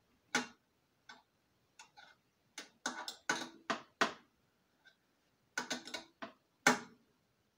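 A wrench clicking and clinking irregularly against metal fittings as they are snugged down, about fifteen sharp ticks with short metallic ringing.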